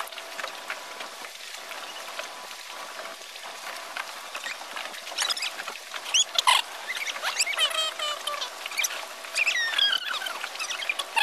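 Small waves patting against the wooden jetty. From about five seconds in, many short, high squeaky chirps join them, several sliding down in pitch near the end.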